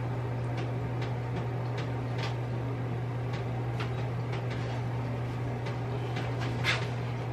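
A steady low hum with faint, scattered light ticks and taps.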